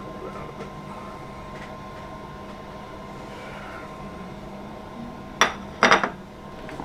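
A steady kitchen hum with a thin high tone. About five seconds in comes one sharp clink, then a short clatter of crockery being handled.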